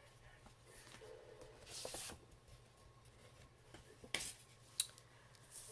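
Faint paper rustling and handling of a hardcover book, with a couple of light clicks about four seconds in.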